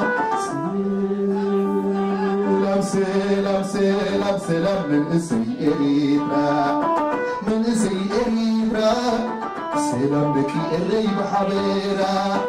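Live Eritrean band music: a man sings over amplified instruments including an electric krar, with a long held low note in the first half and sharp percussion hits throughout.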